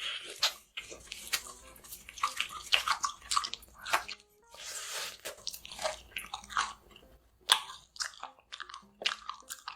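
Close-miked mouth sounds of someone eating: bites and chewing, with many short crackly, wet clicks.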